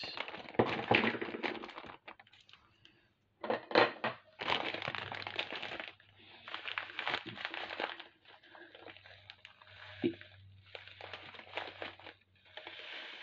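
Clear plastic bag of 11/0 Czech glass seed beads crinkling as it is handled, in several bursts with short pauses between them.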